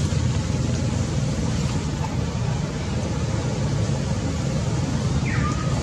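Steady low outdoor rumble, with one short high squeak falling in pitch near the end.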